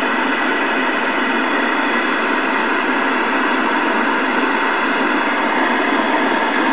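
Steady static hiss from the speaker of a 1977 RCA 12-inch black-and-white solid-state TV, just switched on with no station coming in.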